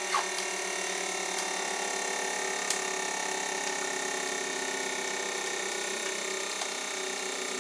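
Hydraulic press running with a steady, slightly pulsing hum as its ram crushes a motorcycle helmet, with a few sharp clicks in the first three seconds.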